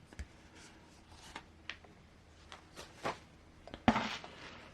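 Packaging and kit contents being handled during an unboxing: scattered light clicks and rustles, with a louder knock and rustle about four seconds in.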